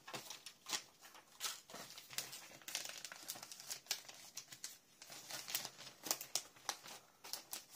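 Plastic embellishment packets crinkling and clicking as they are handled and sorted, in irregular sharp crackles.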